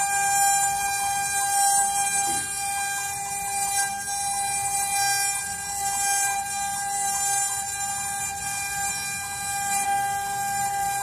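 CNC wood router's spindle running with a steady high whine, with a hiss from the bit cutting wood above it.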